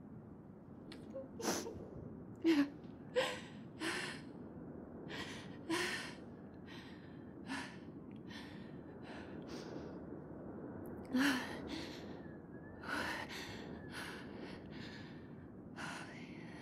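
A young woman breathing in short, sharp gasps about once a second, with sighing breaths between them: ragged, distressed breathing.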